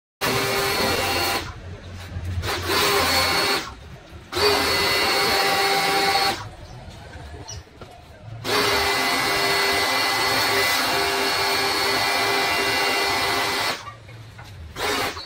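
Bosch UniversalAquatak 125 electric pressure washer running in spurts: its motor whines and the water jet hisses, then both stop and start again several times as the gun trigger is pulled and released. The longest run lasts about five seconds, in the second half.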